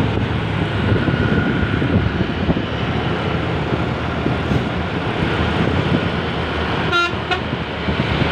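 Steady road-traffic rumble with wind on the microphone, and about seven seconds in a very short horn toot of two quick blips.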